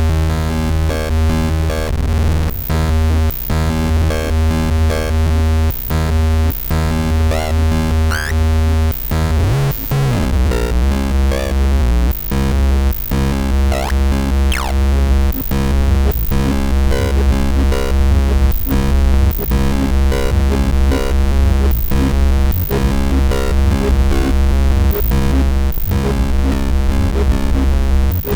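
Electronic noise music from a live synthesizer performance: a dense, layered drone over heavy bass, broken by frequent brief cutouts. A low tone sweeps downward about ten seconds in, and short rising squeals cut through twice.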